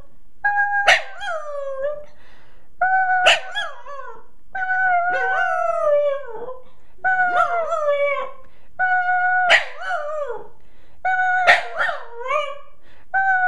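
A small terrier 'talking': about seven howl-like calls, one roughly every two seconds, each a held steady note that breaks into a sharp yip and then slides down in pitch.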